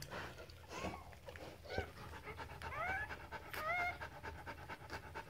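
Rhodesian Ridgeback dam panting rapidly and steadily while in labour, with newborn puppies giving short high-pitched squeaks: one about a second in, one near two seconds, and a pair of rising squeaks around three and four seconds in.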